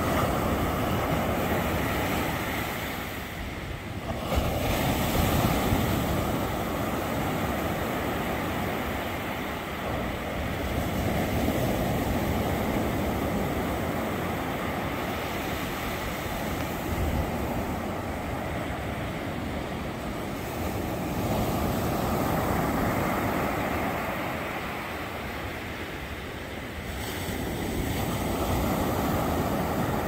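Ocean surf breaking and washing up a sandy shore, a steady rush that swells and fades about every five or six seconds as each wave comes in.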